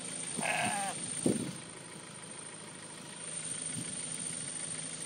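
A sheep bleats, a short wavering call about half a second in, followed by a lower sound a moment later. A car engine idles steadily underneath.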